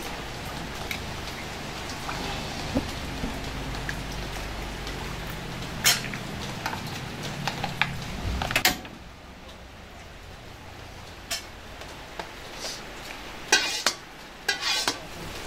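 Kitchen utensils and dishes clinking and knocking several times, over a steady hiss that drops away about nine seconds in.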